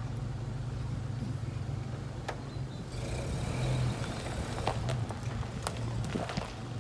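Vintage Rolls-Royce saloon's engine running with a low, steady hum as the car pulls slowly away, tyres crunching over gravel from about halfway through, with a few sharp clicks and ticks.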